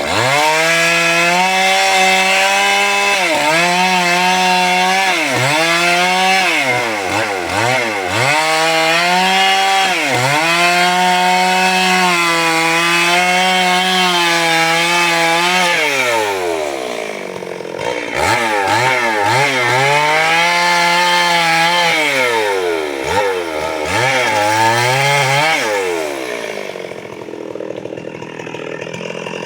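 Chainsaw engine cutting through wood, its pitch dipping and recovering again and again as the chain bites and is eased off. About halfway through it drops back briefly and then cuts again, and it falls back to a lower running sound near the end.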